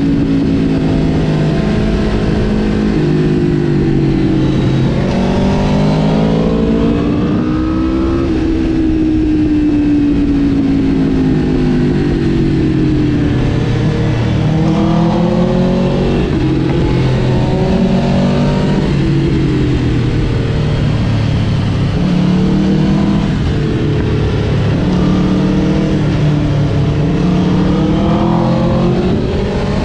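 Aprilia RSV4 Factory's V4 engine heard from on board the moving motorcycle, its pitch climbing and dropping back several times as it accelerates and shifts or rolls off the throttle, over a steady rush of wind noise.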